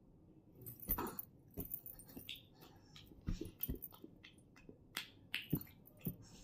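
A baby making a string of short squeaks, grunts and little noises, with a few small clicks between them, starting about a second in.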